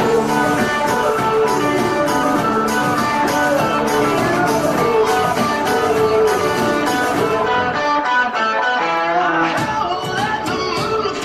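Song playing with a steady beat, a voice singing over guitar.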